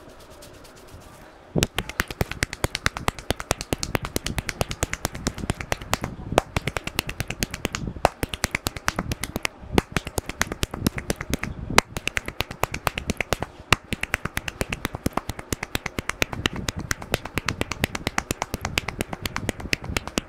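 Percussive head massage: hands strike the scalp in a rapid run of sharp clapping taps, many a second. It starts about a second and a half in, with a few brief pauses.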